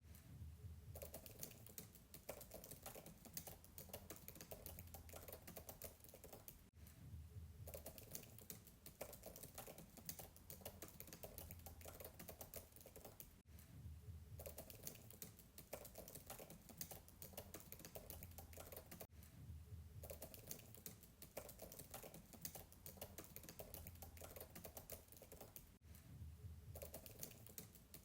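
Fast typing on a MacBook keyboard's soft keys, heard faint and from a distance: a rapid patter of keystrokes with brief pauses about every six or seven seconds.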